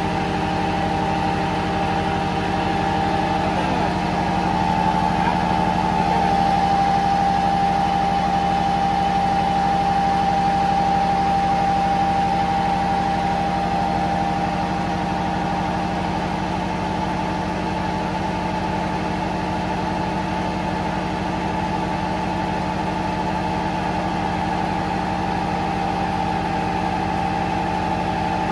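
Steady drone of running machinery in a ship's engine room, with a constant low hum and a higher whine that stay the same throughout.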